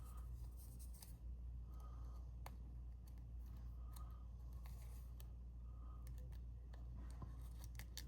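Faint rustling and light clicks of card-stock pieces being handled and fitted together, over a steady low hum.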